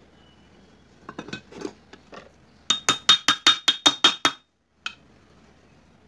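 A quick even run of about nine sharp metallic taps, about five a second, each ringing on the same note, as the crankshaft of a Bajaj CT100 engine is seated into its main bearing in the aluminium crankcase half. Softer handling knocks come before the taps, and one more click follows.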